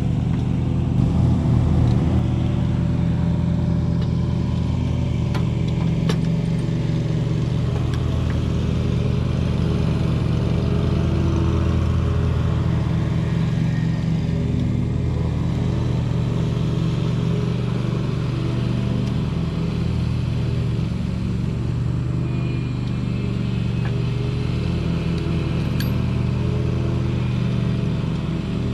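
Lawn mower engine running steadily at a constant speed, with only slight changes in pitch.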